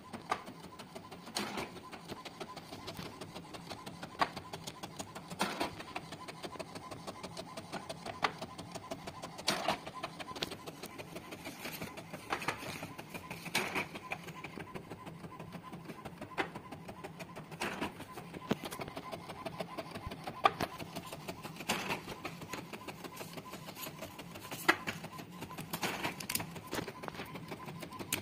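HP Ink Tank 319 inkjet printer printing on heavy card stock: a steady rapid mechanical chatter from the moving print mechanism, with louder clicks every second or few.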